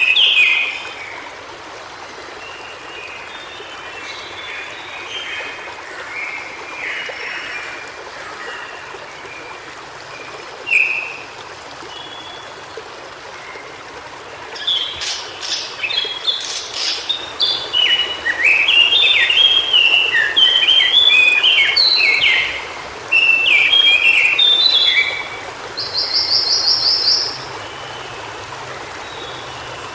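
White-browed shortwing singing in quick, jumbled warbling phrases. The song is sparse at first, then runs almost without a break through the second half, and closes with a fast, high trill. A steady hiss lies underneath.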